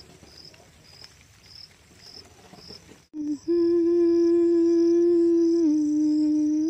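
An insect chirps high and regularly, about twice a second, over faint outdoor background. About three seconds in, after a brief cut, a loud steady humming note begins and drops a little in pitch near the end, with the insect chirps still behind it.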